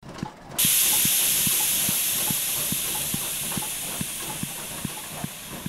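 A loud hiss of escaping steam that starts about half a second in and slowly dies away. Under it runs a steady low beat, about two to three times a second.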